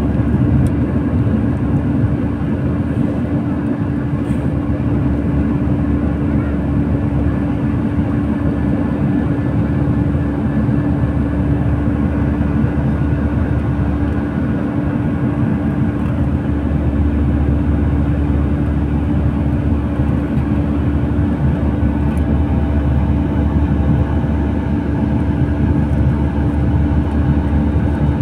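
Boeing 737 turbofan engines heard inside the cabin from a window seat, running at a steady drone with a low hum through it during the climb after takeoff.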